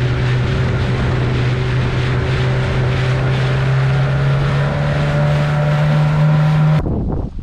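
Small motorboat's outboard engine running at speed, a steady drone that rises a little in pitch, over the rush of the wake and wind on the microphone. It cuts off suddenly near the end.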